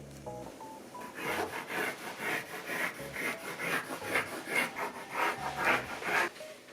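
Repeated rasping strokes, about three a second, of something being rubbed or scraped by hand, starting about a second in. A few short, soft tones sound just before the strokes begin.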